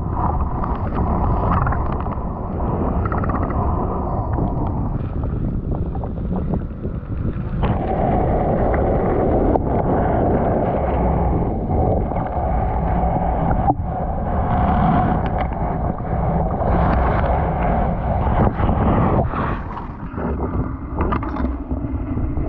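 River water sloshing and splashing around someone wading, with wind buffeting the microphone: a steady, dense rushing noise with no distinct single events.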